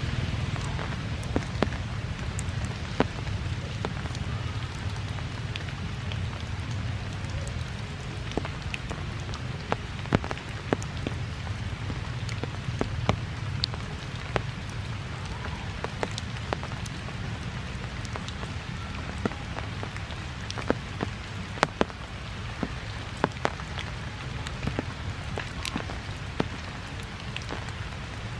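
Steady rain falling on forest foliage, with many sharp, irregular taps of drops landing close by.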